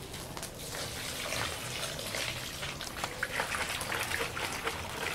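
Bonfire burning with steady crackling: a dense run of small sharp pops over a hiss.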